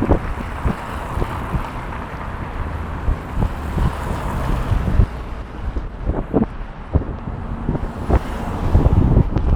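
Strong gusty wind buffeting the microphone, with irregular knocks and bangs scattered through it.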